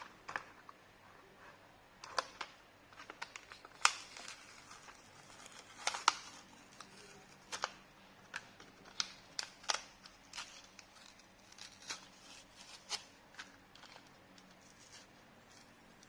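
Toy car packaging being opened: irregular sharp plastic and cardboard clicks and snaps with light crinkling, the loudest snaps about four and six seconds in.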